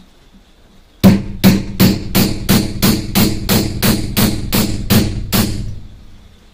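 A hammer striking repeatedly in a steady rhythm: about thirteen even blows, roughly three a second, each with a short ring. The blows start about a second in and stop near the end, and the first is the loudest.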